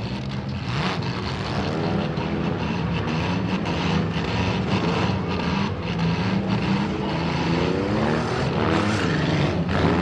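Several front-wheel-drive demolition derby cars' engines revving hard and changing pitch as they race around and ram each other, with a number of sharp bangs from car-to-car hits.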